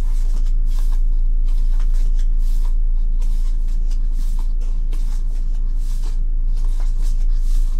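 Pages of a glossy photobook being turned by hand, with soft paper rustles and flicks, over a steady low hum.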